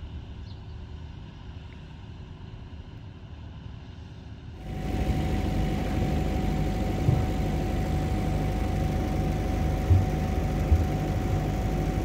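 Mobile power generator running steadily close by, with a constant hum, loud from about four and a half seconds in after a quieter low rumble; a few brief knocks sound over it.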